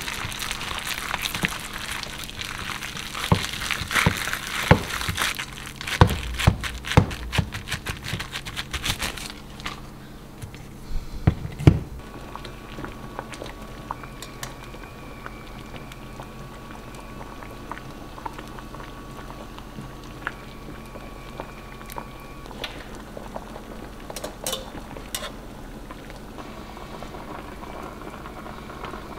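Hands squish and knead a raw ground chicken mixture in a stainless steel bowl, with a few sharp knocks against the bowl, for about the first nine seconds. Then a pot of water simmers steadily on the stove, with faint clicks of tongs as softened cabbage leaves are lifted out.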